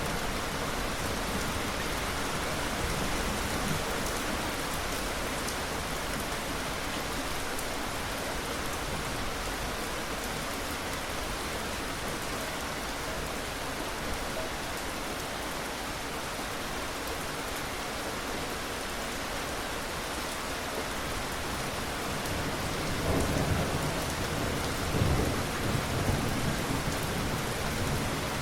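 Steady heavy rain falling, with rumbles of thunder rolling in near the end.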